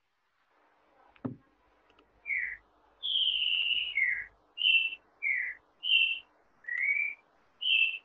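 A run of about eight clear whistled notes, each short and sliding up or down in pitch, with one longer falling note about three seconds in. A single soft knock comes about a second in.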